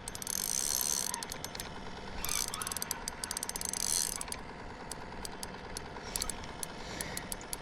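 Fishing reel at work while a hooked smallmouth bass is fought: a run of quick ratcheting clicks from the reel, with two short stretches of hiss, one near the start and one about two to four seconds in.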